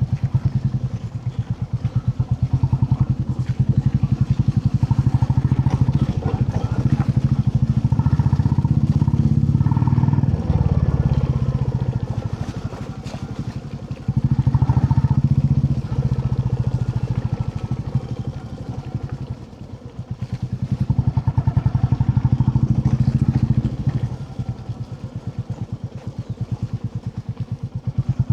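Royal Enfield Classic 350's single-cylinder engine running on the move, its exhaust beating in an even thump. It pulls harder three times and eases back off the throttle in between.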